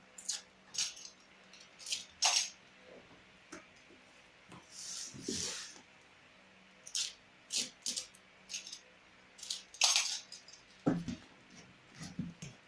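Drills and packing materials being handled: scattered clicks, light knocks and rattles, with a few brief rustling swishes.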